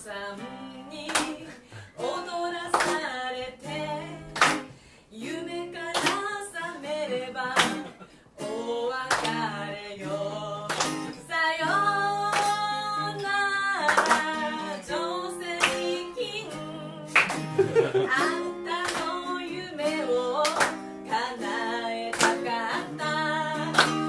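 A woman singing a lively song into a microphone, accompanied by a strummed acoustic guitar, with frequent sharp percussive hits over the music.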